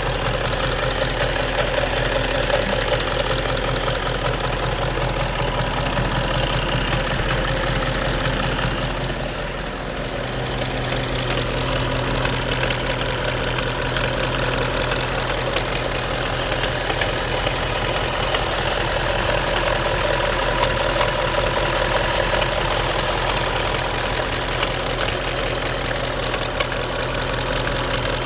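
Audi A8 D3's 4.2 TDI V8 diesel engine running steadily with a foreign knocking noise, located at the right rear of the engine.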